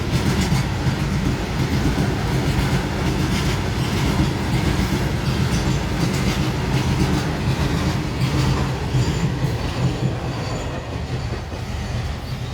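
A train passing at a level crossing, its wheels rumbling and clattering over the rail joints, easing off a little near the end.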